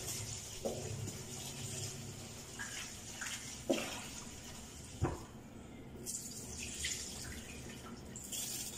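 Rice being washed in a plastic tub under the kitchen tap: running water and hands swishing the grains, with a couple of sharp knocks against the tub or sink.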